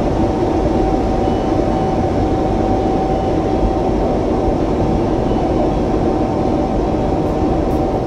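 Steady noise of marble-processing factory machinery: a constant pitched tone over a low rumble, unchanging throughout.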